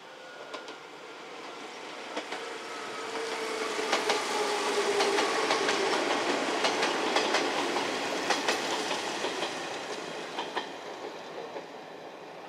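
Izu Hakone Railway 3000 series electric train passing by, its wheels clacking over the rail joints in quick repeated beats. It builds up, is loudest in the middle and fades away, with a steady whine as it approaches.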